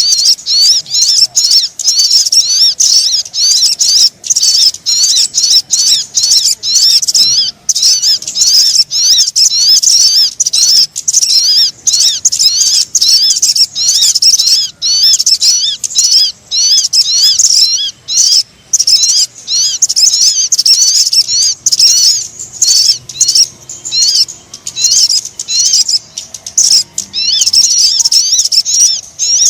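Sogon bird-lure call: a dense, unbroken stream of rapid, high-pitched chirping and twittering notes, broken only by a few brief pauses.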